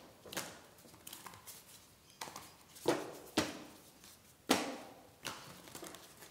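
A deck of tarot cards shuffled by hand, the cards slapping and sliding against each other in several sharp flicks a second or so apart.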